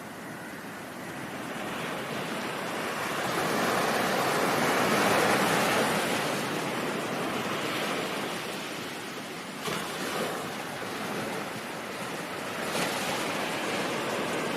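Ocean surf: a wave swells to a peak about five seconds in and washes back, then the rush of water carries on more softly.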